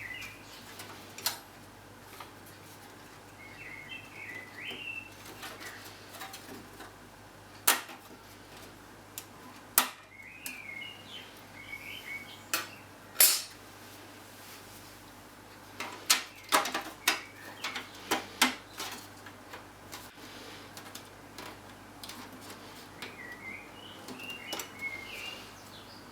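Sharp metallic clicks and taps of a thin sheet-metal I/O backplate shield being worked out of and pressed into a PC case, coming in scattered knocks with a quick cluster of clicks in the second half. A bird chirps faintly a few times in the background.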